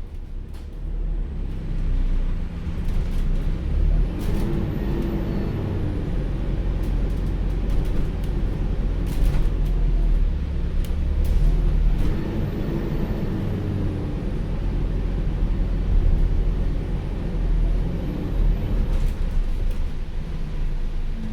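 An Alexander Dennis Enviro400H City hybrid double-decker bus running, heard on board: a steady low drivetrain and road rumble, with a hoover-like whine that rises and then falls in pitch three times as the bus speeds up and slows down.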